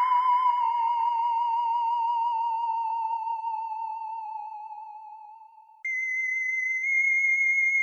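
Electronic sci-fi 'alien' sound effect: a theremin-like tone with a fast wavering vibrato sinks slowly in pitch and fades away over about six seconds. It then cuts off, and a higher, steadier tone starts at once and holds.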